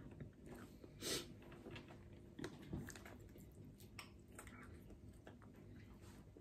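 Faint chewing and biting of soft doughnuts, with a few small mouth clicks and smacks.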